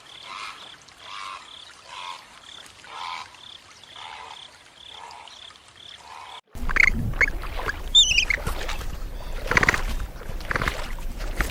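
Animal calls repeating evenly about twice a second. About six and a half seconds in, the sound cuts abruptly to a louder scene with high, quickly falling chirps and a low rumble.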